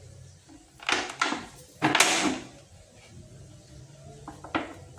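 Thin clear plastic bottle crackling as it is gripped and pierced with a hot iron rod that melts small holes in it: a couple of crackles about a second in, the loudest around two seconds, and a shorter one near the end.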